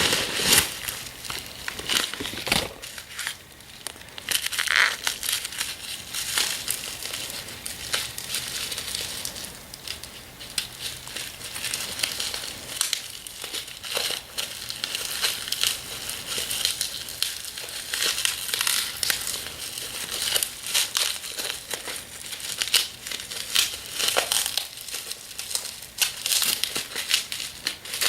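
Packaging crinkling and crumpling as a parcel is unwrapped by hand, with many small irregular crackles and rustles.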